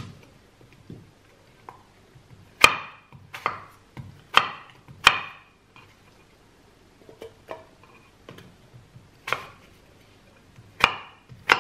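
Chef's knife slicing a green apple on a wooden cutting board: crisp cuts, each ending in a knock of the blade on the board. Four loud cuts in the middle, a few softer ones after, and two more loud ones near the end.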